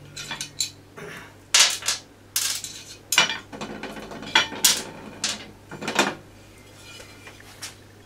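Metal parts and tools clinking and clattering as they are handled: a run of sharp clinks, several with a short ring, ending about six seconds in.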